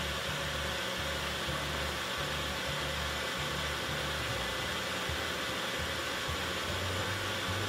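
Compact personal blender running steadily at one speed, blending milk, banana and blueberries into a smooth juice.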